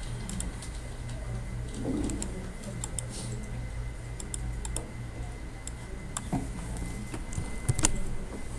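Scattered, irregular clicks of a computer keyboard and mouse being worked, over a steady low electrical hum.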